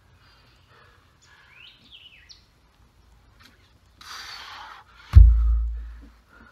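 A heavy odd object dropped from a power clean lands on the forest floor with one loud, deep thud about five seconds in, just after a sharp breath out. Birds chirp in the background.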